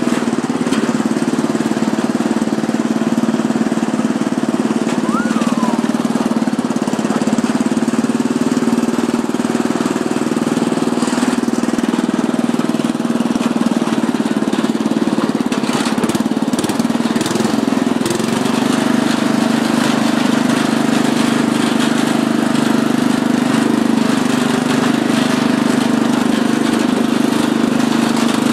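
Murray riding lawn mower's engine running steadily as the mower is driven.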